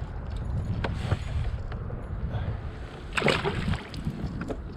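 Wind rumbling on the microphone in a kayak, with a few light knocks and a brief louder splash-like burst about three seconds in.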